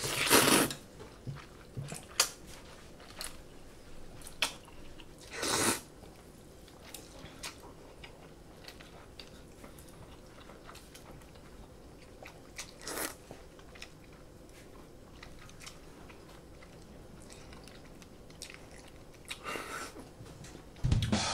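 Close-miked eating of cold buckwheat noodles (naengmyeon): four loud slurps, one at the start, one about five seconds in, one about thirteen seconds in and one near the end, with quiet chewing and small clicks in between.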